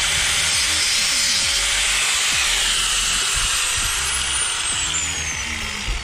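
Small abrasive cutoff wheel spinning at high speed and grinding through the crimped metal of a battery cable terminal, a harsh high hiss. From about halfway a thin whine falls steadily in pitch as the wheel spins down.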